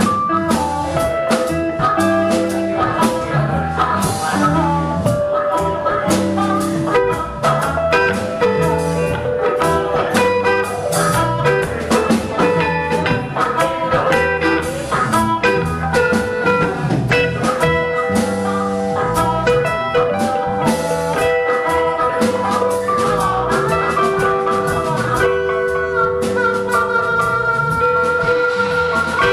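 Live blues-rock band playing an instrumental jam, with harmonica lead over drum kit, electric guitars and keyboard. In the last few seconds, long notes are held over the beat.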